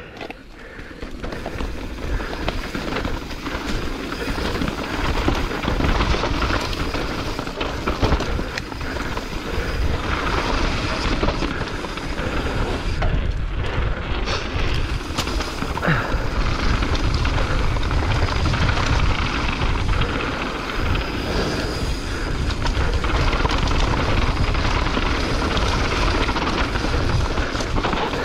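Riding noise of a mountain bike descending a dry dirt singletrack at speed: a steady rush of wind on the action camera's microphone and tyres rolling over dirt, with scattered short knocks from bumps.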